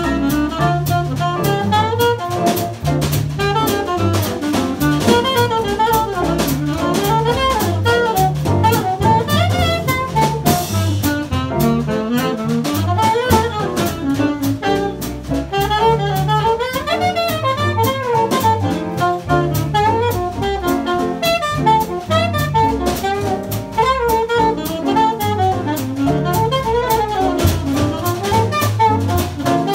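Live small-group jazz: a saxophone plays a winding solo line over a walking double bass and drum-kit cymbals keeping time.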